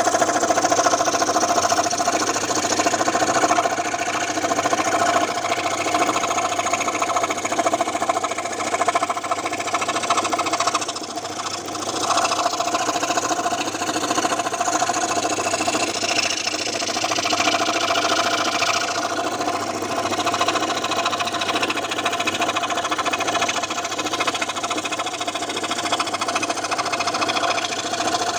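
Scroll saw running, its blade driven up and down rapidly with a steady mechanical hum and chatter; the level dips briefly about eleven seconds in.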